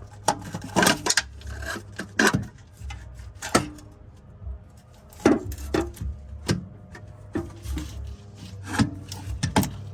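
Irregular metal clunks, knocks and scraping as a Ford Mustang's stock starter motor is worked loose and pulled out from beneath the engine, with a steady low hum underneath.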